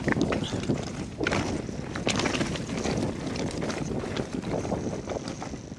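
Commencal Meta mountain bike descending a rocky, rutted trail: tyres rolling over loose stone with a steady run of rattles and knocks from the bike, and wind rushing over the microphone. The noise eases a little near the end.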